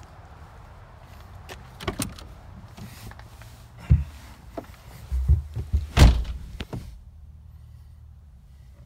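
Someone climbing into a Land Rover Defender 110's driver's seat. There are knocks near two and four seconds in, then a run of heavy thuds, and the driver's door slams shut about six seconds in. After that the sound is muffled inside the cabin, over a steady low hum.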